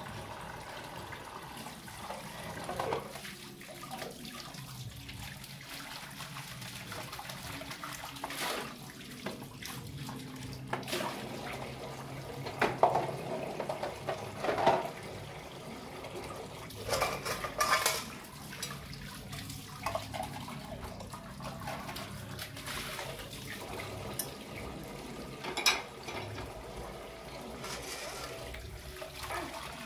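Water running and splashing from a tap, with several short knocks and clatters scattered through.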